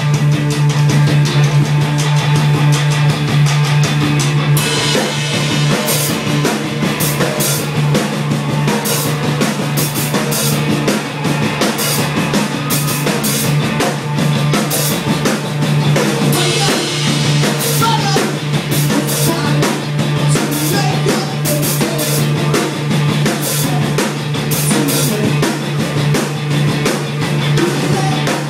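Rock band playing: a drum kit keeps a regular beat over guitar and a held low bass note, with a cymbal crash about five seconds in and another about halfway through.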